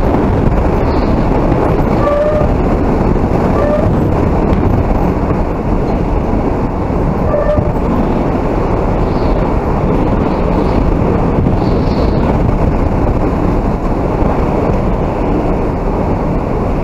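Hurricane-force wind blowing hard: a loud, steady, gusting rush with wind buffeting the microphone. A few faint brief squeaks sound over it in the first half.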